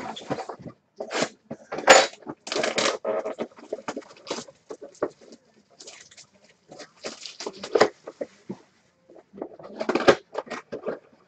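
Hands handling hockey card packaging: irregular crinkling and rustling of pack wrappers and cardboard, broken by sharp knocks of cards and a card box on a wooden table. The loudest knocks come about two seconds in and again near ten seconds.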